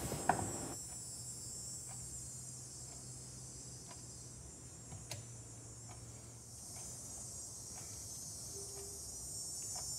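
Faint steady hiss and low hum, with a handful of soft clicks from a screwdriver and small metal carburetor parts being handled.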